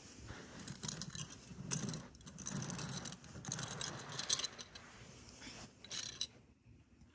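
LEGO Technic plastic beams and pins clicking and rattling as they are handled and pressed together, an irregular run of clicks that stops about six seconds in.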